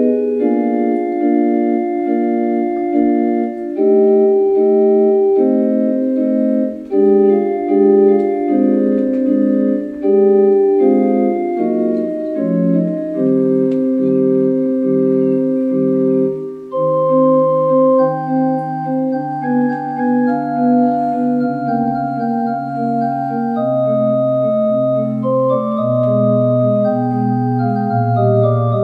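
Yamaha electronic keyboard played solo: held chords changing step by step, with a lower bass line coming in about halfway through and growing stronger toward the end.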